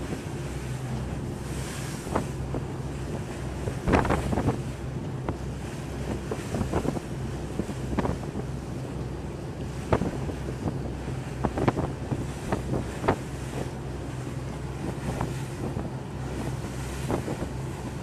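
Small boat at sea: its engine hums steadily under wind buffeting the microphone, while waves slap and splash against the hull at irregular intervals, a few sharply louder.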